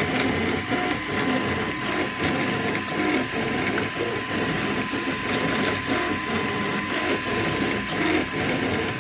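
Small toy 3D printer running mid-print: its stepper motors whir in short tones that change pitch every fraction of a second as the print head moves, over a steady high hum.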